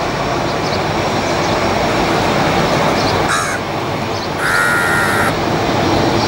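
Crow cawing twice, a short harsh call about three seconds in and a longer one about a second later, over the steady noise of a jet airliner's engines on the runway.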